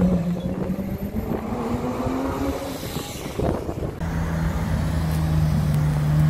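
Ferrari V8 sports car running at low revs as it rolls slowly past at close range. Its engine note holds steady, dips slightly about halfway through, and grows louder toward the end.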